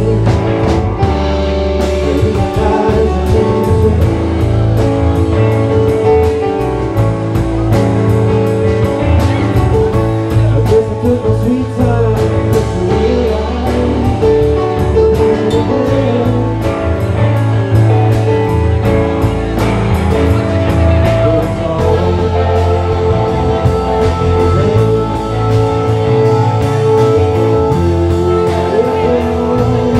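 A live funk-jazz band playing: drum kit, electric guitar and keyboards over a strong low bass line, with cymbal strokes keeping a steady beat.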